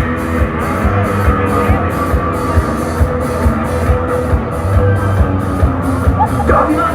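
A rock band playing live, with a drum kit keeping a steady beat under guitar.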